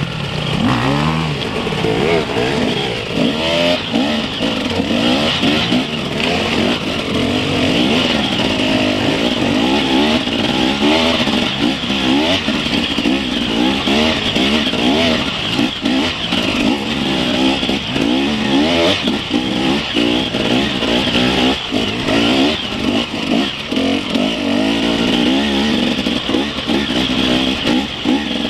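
Enduro dirt bike engine heard from on the bike, revving up and down every second or so as it climbs a steep, rough dirt trail, with occasional knocks from the bike over the terrain.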